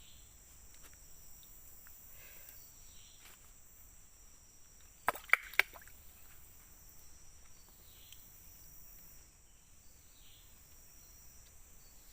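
Steady high-pitched insect chorus of tropical rainforest, with faint short falling calls now and then. About five seconds in, three sharp clicks in quick succession stand out loudly above it.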